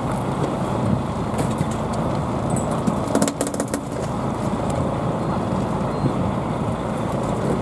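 Fishing boat's engine running steadily, a continuous rumble. A short cluster of sharp clicks and knocks comes about three to four seconds in.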